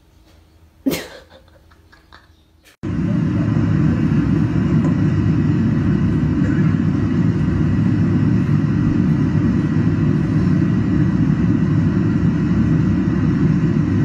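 A brief vocal sound about a second in. Then, starting suddenly about three seconds in, the loud, steady, low rumble of an airliner's cabin noise.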